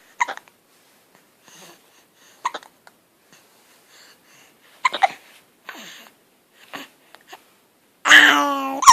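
A baby hiccuping, with short sharp hiccups a couple of seconds apart, then a longer drawn-out voiced sound from the baby near the end.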